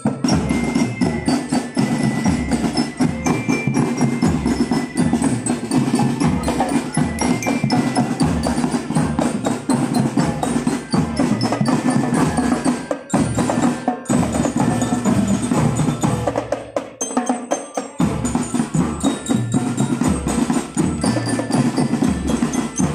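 Percussion-led music with a steady beat of drums and wood-block-like knocks, with bell-like mallet tones over it; it drops out briefly about two-thirds of the way through.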